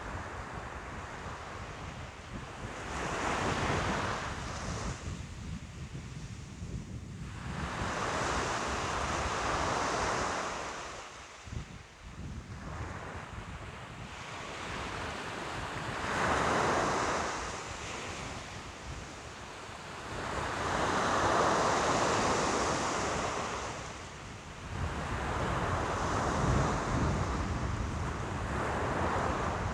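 Ocean waves breaking and washing onto the shore, each swell rising and falling away every few seconds, with a low rumble of wind on the microphone underneath.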